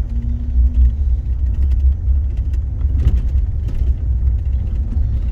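Steady low road rumble of a car driving slowly on a snow-covered road, with a few faint ticks over it.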